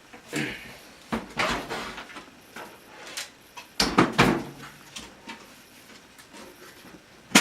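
Handling of a large PC case, a cover being pulled off its body: a run of scattered knocks, clicks and scrapes. It is loudest around four seconds in and ends with a sharp knock.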